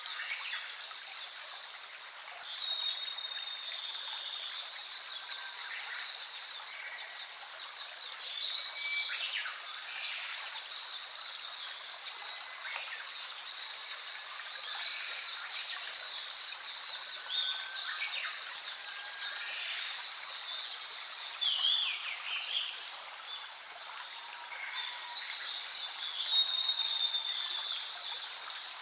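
A chorus of wild birds: many overlapping chirps, trills and short whistles over a steady high hiss.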